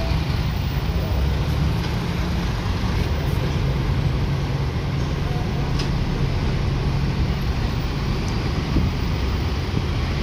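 Steady road traffic: the engines of cars, buses and motorcycles running on the road below, with a steady low engine hum underneath.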